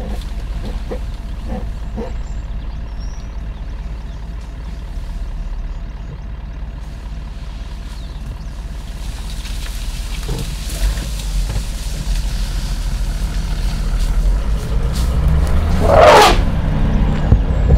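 Vehicle engine running with a steady low rumble that grows heavier in the second half. Near the end a young bull African elephant, ears spread in a threat display toward the car, gives one loud, brief call.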